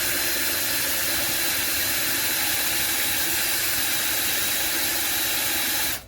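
Cordless electric drill running steadily at full speed, boring a hole through tubing; it cuts off suddenly near the end.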